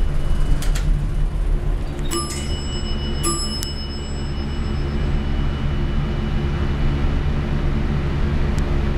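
Elevator car's mechanical bell struck twice, a bit over two seconds in and again about a second later, each stroke ringing briefly with a bright metallic tone. A short click comes shortly before the strokes, over a steady low hum.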